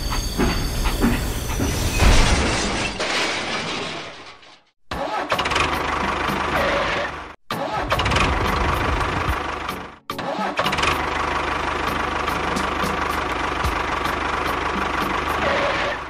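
Tractor engine running, in several stretches that cut off abruptly about 5, 7½ and 10 seconds in.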